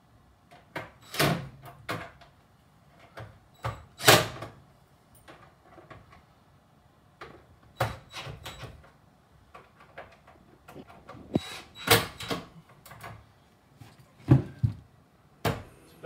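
Knocks and clicks of a kitchen cabinet door on an integrated washing machine being handled while its hinge is adjusted: a string of separate sharp knocks a second or few apart.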